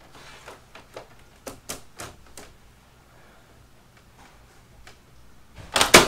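Plastic front cover of a Mitsubishi Mr. Slim split air conditioner's wall unit being fitted back on: a scatter of light clicks in the first couple of seconds, then a loud clatter of snaps near the end as the cover is pressed shut.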